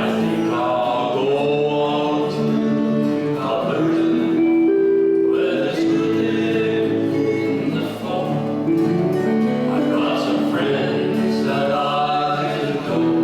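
Men singing a folk song over acoustic guitar strumming.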